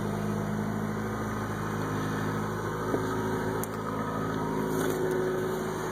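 Honda CR-X Si's 1.6-litre D16A6 four-cylinder engine idling steadily after a start.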